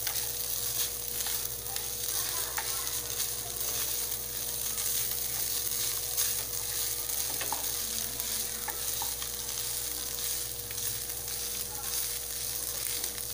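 Shredded chicken frying in a pan with a steady sizzle while a wooden spatula stirs and scrapes through it, with scattered light ticks of the spatula against the pan.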